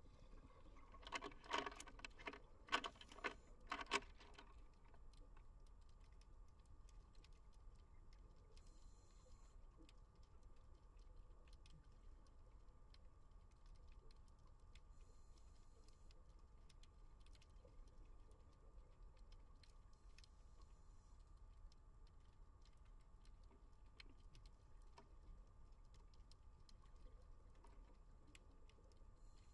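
Underwater near silence with a faint, steady ticking crackle, broken about one to four seconds in by a quick run of louder gurgling bursts, which fit a scuba diver's exhaled bubbles. A few faint hisses follow later.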